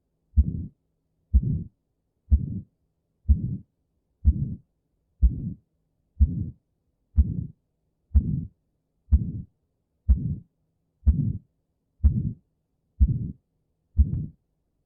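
Recorded heartbeat with a murmur, beating regularly about once a second. Each beat is a sharp thud that runs straight into a longer, lower sound, with silence between beats.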